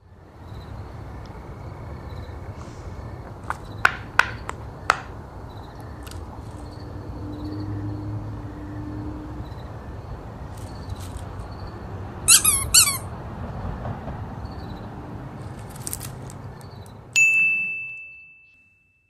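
Steady background hiss with a few sharp clicks, a quick run of high squeaky chirps about twelve seconds in, and a bright ringing ding near the end that fades out.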